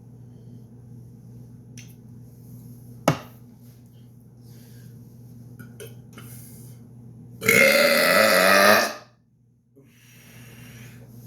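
A man's long, loud deliberate burp, about a second and a half, past the middle; a single sharp click a few seconds before it.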